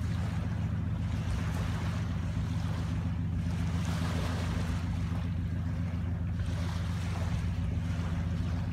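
Steady low drone of a departing vessel's engines, with small waves washing along the shore.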